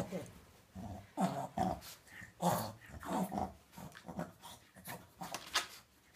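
French bulldog growling in short, irregular bursts while rolling on her back and rubbing herself on a towel, with the towel rustling against the tile floor.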